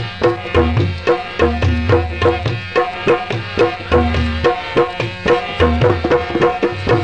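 Instrumental break in a Punjabi folk song: hand drums play a quick, steady rhythm at about four strokes a second with deep bass strokes, under a held melody line.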